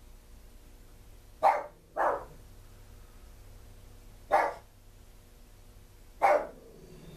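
A dog barking four times: two barks close together about a second and a half in, then two single barks about two seconds apart.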